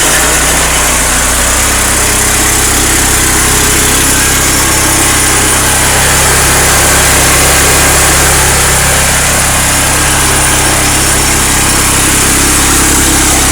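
Honda GX390 single-cylinder four-stroke engine of an EDCO walk-behind concrete saw, freshly started and running steadily.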